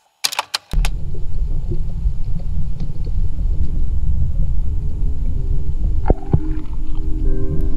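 Underwater sound through an action camera's waterproof housing: a steady low rumble of moving water, after a few sharp clicks in the first second. Music fades in near the end.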